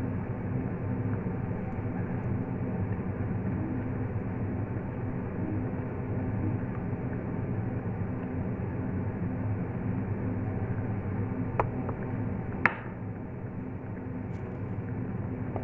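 A steady low mechanical hum from the kitchen runs throughout, and a metal ladle clinks twice against the cookware as soup is served, the second clink the sharper.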